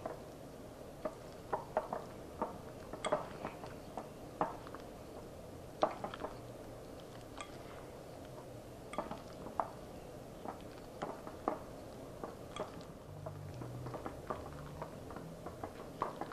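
Rubber spatula folding whipped topping into a thick pudding and fruit mixture in a glass mixing bowl: irregular soft knocks and clinks of the spatula against the glass, several times.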